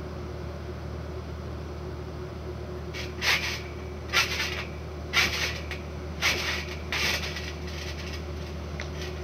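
Backyard trampoline being bounced on: five short noisy swishes about a second apart, starting about three seconds in, over a steady low hum.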